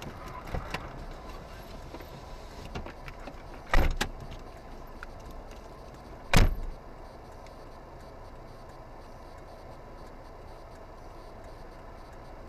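Steady car-cabin road and engine noise with a few light clicks near the start and two sharp knocks a couple of seconds apart in the middle.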